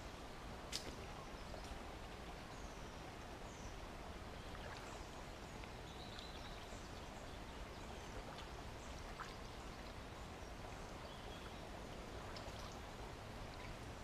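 Faint, steady water and outdoor background as someone wades in a shallow brook, with a sharp click just under a second in and a few lighter knocks from sticks and debris being moved. A small bird chirps briefly now and then.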